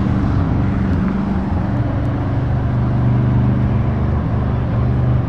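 Heavy lorry diesel engines running steadily as trucks drive along the road, over road noise.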